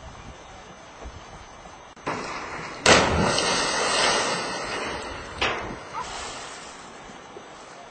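A person hitting the river after jumping from a bridge: a sudden loud splash about three seconds in, then water spraying and falling back for a couple of seconds. A second sudden rush of noise follows a couple of seconds later and fades away.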